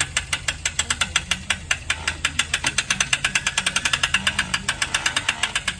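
Ratchet of a crank-up tower's winch clicking rapidly and evenly, about nine clicks a second, as the tower is cranked up; the clicking stops abruptly near the end.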